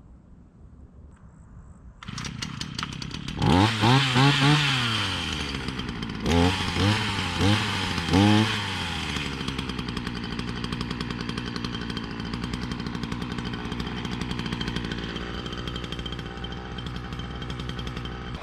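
Gas chainsaw starting up about two seconds in. It is revved up and down several times, then runs steadily.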